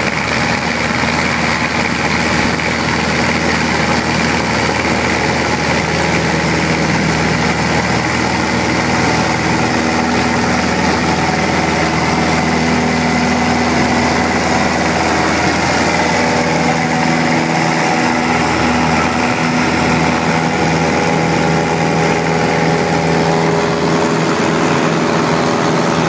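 Cessna 172's piston engine and propeller running steadily at full power during the takeoff and climb, heard from inside the cockpit.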